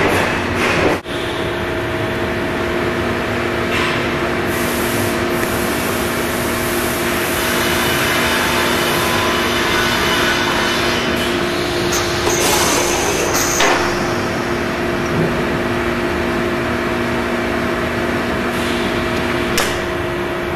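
Web slitting machine running: a steady machine hum with a couple of constant tones over a rushing noise, and a few light clicks and knocks scattered through it.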